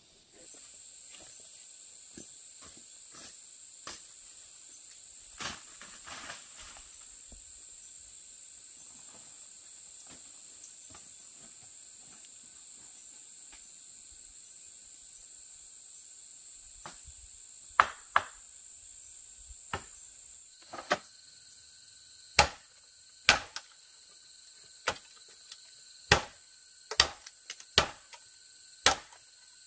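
Insects trilling steadily in the forest at a high pitch. In the last third, a machete chops sharply into the base of green bamboo stems, about one stroke a second.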